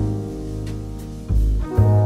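Jazz ballad backing track: piano chords over a double bass line, moving from Ebmaj7 to Abmaj7 with a new chord and bass note about a second and a half in.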